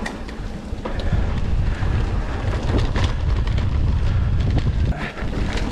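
Wind rumbling on the microphone, mixed with the rattle and knocks of a mountain bike riding over rough singletrack. Sharp clicks come at scattered moments.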